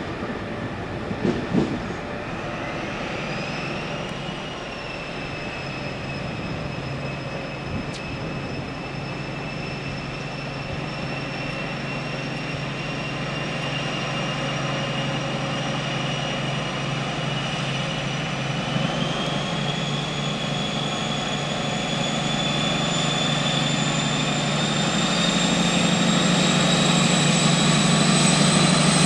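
InterCity 125 (Class 43) power car's diesel engine working hard as the train pulls away, with a high whine that rises in pitch a few seconds in and again partway through. It grows steadily louder as the train draws near.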